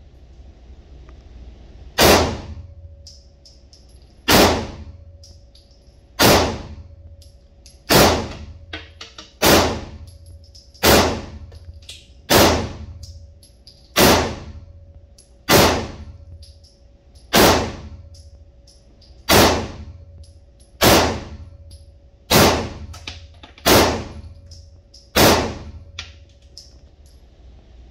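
SIG P320 pistol fired fifteen times in slow, steady succession, about one shot every one and a half to two seconds, each shot ringing off the walls of an indoor range.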